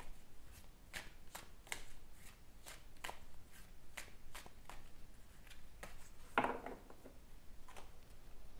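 A tarot deck shuffled by hand, a series of soft card snaps at an uneven pace, with one louder slap of cards about six seconds in.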